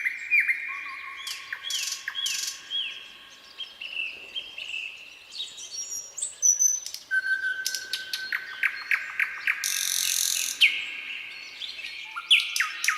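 Nightingale singing a varied song of sharp falling whistles and long held notes, with fast runs of repeated notes and a brief buzzy phrase in the second half.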